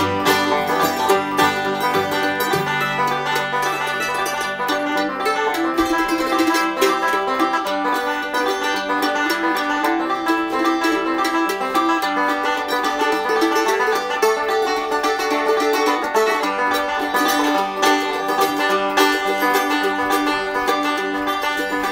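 Instrumental background music led by a plucked banjo, with other plucked strings, in a bluegrass style.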